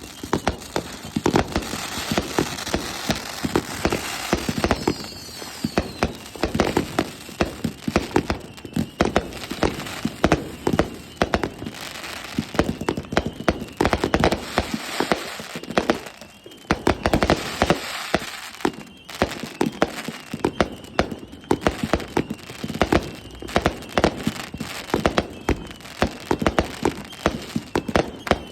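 Consumer fireworks going off in rapid succession: a dense run of bangs and crackling pops, with a falling whistle a few seconds in.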